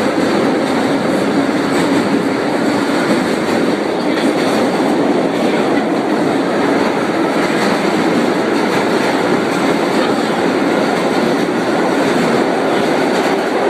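Vintage R1–R9 'Arnine' subway car running along the line, heard from inside the car: a steady, loud rumble and clatter of wheels on rails that holds evenly throughout.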